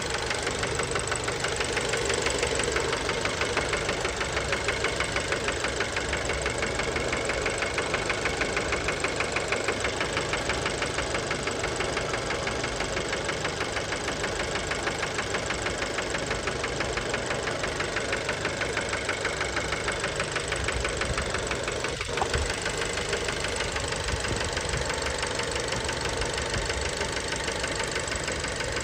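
Fiat Bravo's 1.4 T-Jet turbocharged four-cylinder engine running steadily with a fast, even knocking rattle, the sign of worn connecting-rod bearings (rod knock). One sharp click stands out about three quarters of the way through.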